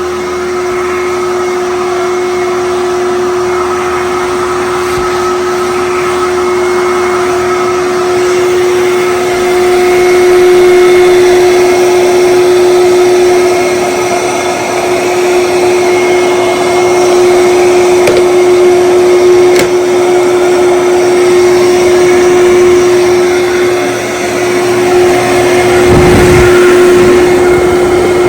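Kenmore Destiny Plus upright bagless vacuum cleaner (a rebranded Fantom Thunder) running steadily with a constant motor whine. There is a brief low rumble near the end.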